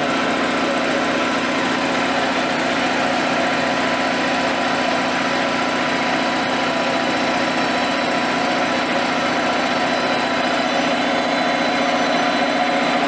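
U43102 piston air compressor, belt-driven by a 3 kW electric motor on 220 V, running steadily at an even pitch while pumping up an emptied receiver tank from zero.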